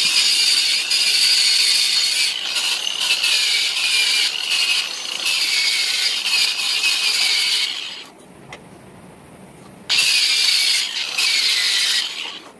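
Angle grinder grinding the steel of a front suspension arm, its high whine dipping and recovering as it is pressed into the metal. It runs for about eight seconds, stops, then runs again for about two seconds and winds down near the end.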